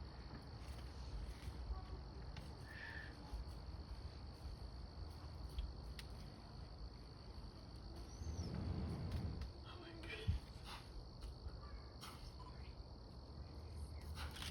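Insects, such as crickets, trilling in one steady high drone, over faint outdoor background. A short low rumble comes about eight seconds in, and a brief sharp knock about ten seconds in.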